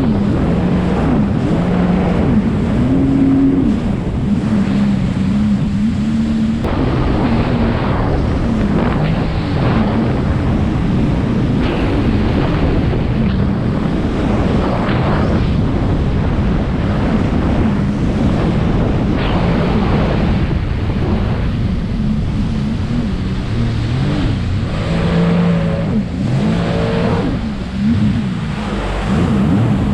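Speedboat engine running under way, its pitch shifting up and down, with water rushing past the hull and wind buffeting the microphone.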